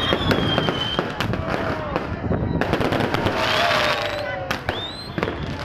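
Fireworks going off in a dense barrage: many sharp bangs and crackles, with high whistles gliding in pitch, some rising and some falling.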